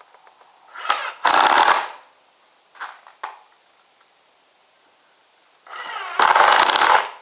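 Impact driver driving drywall screws into wood: twice the motor spins up and the impact mechanism then hammers rapidly for about a second, with two short trigger blips in between.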